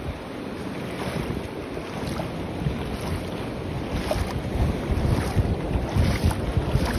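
Wind buffeting the microphone over shallow water lapping and splashing.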